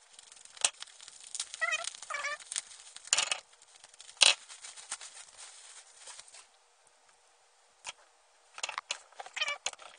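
Plastic wrapping and bubble wrap crinkling and crackling in the hands as a fingerboard is unwrapped, with a sharp crackle about four seconds in. Short wavering, high-pitched squawk-like sounds come twice, near two seconds and near nine seconds.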